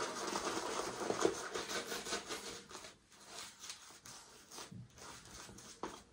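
Synthetic shaving brush swirling fresh shaving-soap lather on the face: a quick, scratchy swishing of many small strokes. It fades after about three seconds to faint, occasional rubs.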